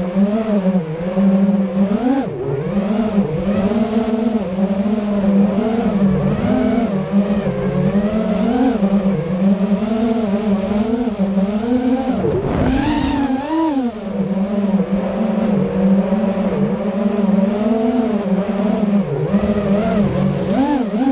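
Electric motors and propellers of an FPV racing quadcopter whining, the pitch rising and falling constantly with the throttle. About twelve seconds in the pitch dips sharply, then climbs steeply.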